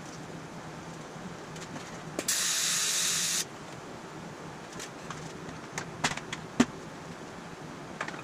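A loud hiss of spraying air or gas, starting about two seconds in and cutting off suddenly about a second later. After that come a few sharp clicks and taps as a quick-grip bar clamp is worked on the aluminum panels, over a low steady hum.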